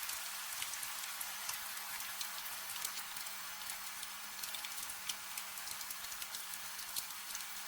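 Steady rain falling, with a dense scatter of irregular drop ticks over an even hiss, and a faint steady low hum underneath.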